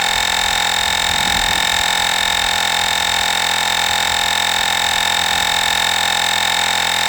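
Portable cordless air compressor (Olgeo M7) running steadily as it inflates a car tire, a constant humming buzz with a strong high-pitched tone over it.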